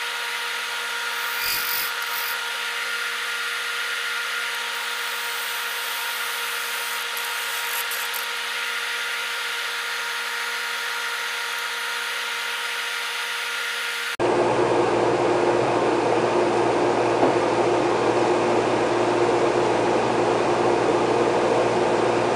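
Wood lathe running with a steady motor whine, with a few brief tool-on-wood scrapes near the start as a small piece is turned. About fourteen seconds in, the sound cuts abruptly to a louder, rougher run of the lathe.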